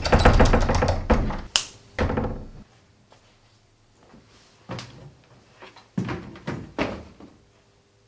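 Wooden door being rattled and knocked at its handle: a loud run of rapid rattling knocks and thuds for about two and a half seconds, then a few softer separate knocks.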